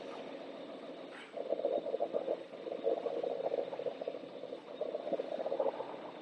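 CNC turret punch press working through a rapid run of punching strokes over a steady machine hum, starting about a second in and stopping shortly before the end.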